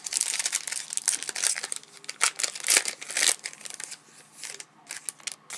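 Crinkling and tearing of a 2007 Topps football card pack wrapper being opened, dense for the first three and a half seconds, then a few scattered crackles.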